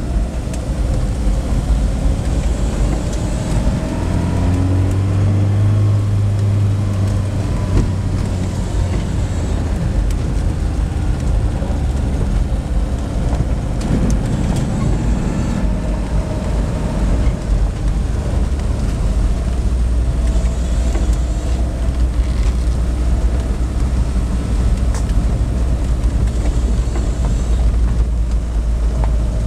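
Vehicle driving slowly on a dirt road, heard from inside the cab: a steady low engine and tyre rumble.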